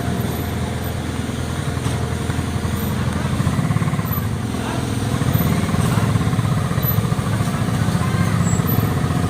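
An engine running steadily at a constant pitch.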